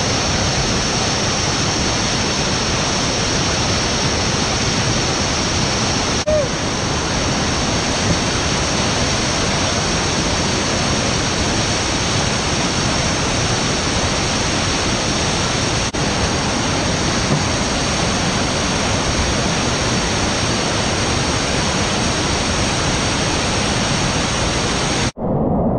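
Steady rush of whitewater pouring down a steep, rocky creek rapid running high after rain. Near the end it breaks off for an instant and comes back duller.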